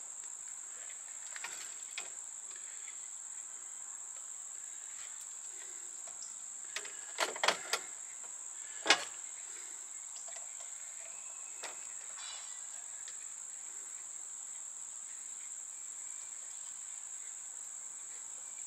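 Steady high-pitched insect drone throughout. A few sharp clicks and knocks come about seven to nine seconds in, from wires being handled inside a metal breaker panel.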